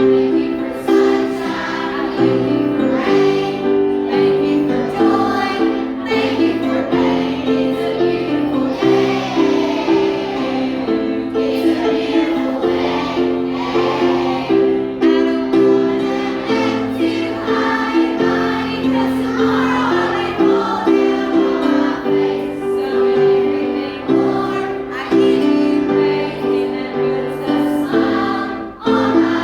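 A group of children and adults singing a song together over instrumental accompaniment, with a brief lull near the end.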